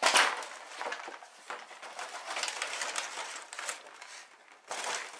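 A cardboard box being ripped apart by hand: one loud tear at the start, a run of shorter tearing and crinkling noises, and another loud rip near the end.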